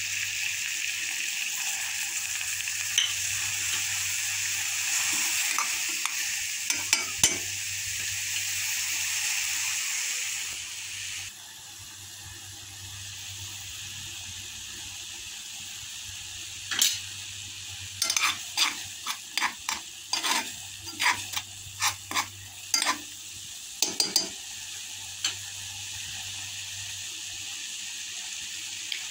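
Spiced water for kahwa boiling hard in a metal pot, a steady bubbling hiss that drops suddenly and goes quieter about eleven seconds in. Later a run of sharp metal clinks and knocks against the pot sounds over the bubbling.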